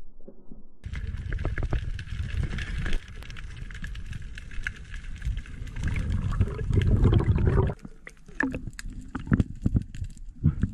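Muffled underwater rushing and low rumbling through an action camera's waterproof housing, swelling louder before cutting off sharply about three-quarters of the way through. After that come scattered sharp clicks and knocks.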